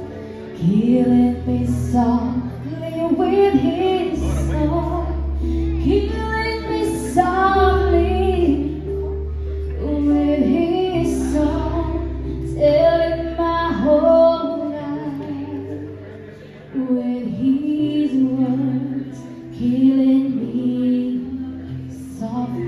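A woman singing a song into a handheld microphone through a PA, in sung phrases with short breaks, over instrumental accompaniment with a strong bass line.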